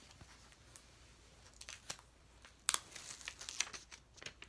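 Paper release sheet being peeled up off the adhesive surface of a diamond-painting canvas and handled, crackling and crinkling in short sharp bits. It starts about a second and a half in and is loudest just before the middle and in a quick run of crackles near the end.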